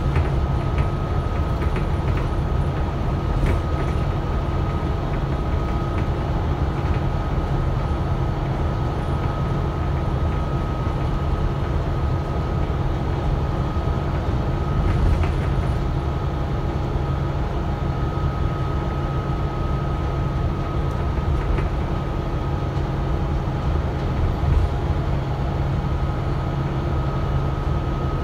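Inside a Volvo B9TL double-decker bus under way: the steady rumble of its six-cylinder diesel engine and drivetrain mixed with road noise, with a thin, constant high whine over it.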